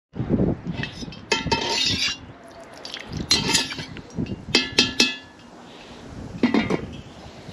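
Metal clinks and knocks of a skimmer ladle and an aluminium lid against a cast-iron kazan, several strikes that ring briefly, with three quick clinks about five seconds in and the lid being set down near the end.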